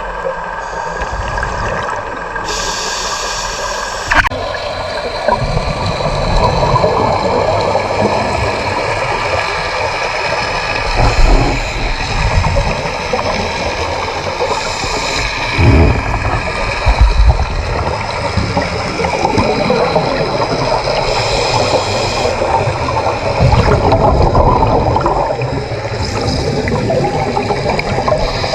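Water gurgling and rushing, with loudness swelling and falling irregularly, typical of a scuba diver's exhaled bubbles around an underwater camera.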